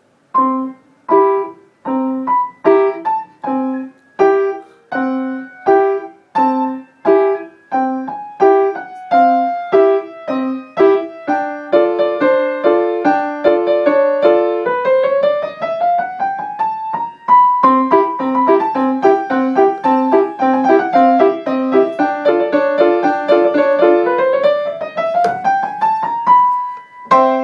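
Piano music: chords struck one at a time in a steady pulse under a simple melody, turning into a fuller, flowing passage about halfway through, with melody lines that rise and fall.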